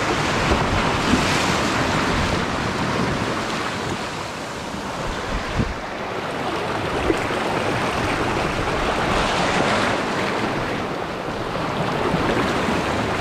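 Sea surf washing against a rocky shore, with wind rumbling on the microphone; the wash swells and eases over several seconds.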